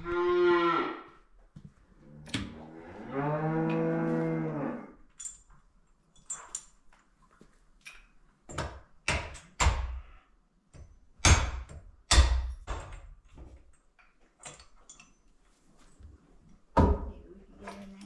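Dairy cows mooing: a short moo at the start, then a longer one of about two seconds a few seconds in. From about eight seconds on come sharp, irregular knocks and clatters.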